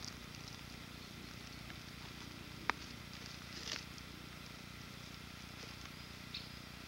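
Faint steady outdoor background hiss, broken by one sharp click a little past two and a half seconds in and a short rustle about a second later, then a small tick near the end.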